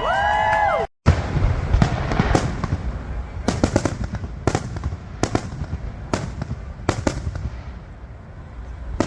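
Fireworks going off: a quick run of crackling pops and sharp bangs over a low rumble, thinning to single cracks every half-second or so. Before a short dropout about a second in, a held, sliding pitched tone is heard.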